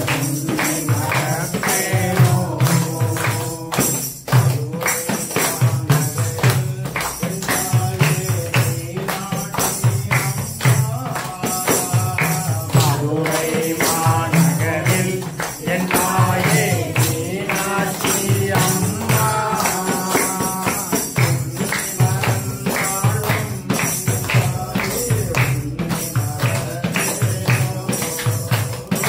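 Hindu devotional bhajan: voices singing, with hand clapping and a jingle tambourine keeping a steady beat.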